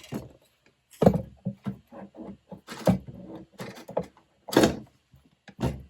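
Craft tools and supplies being moved and set down on a crowded desk: about five sharp knocks and clatters with scraping and rustling between them.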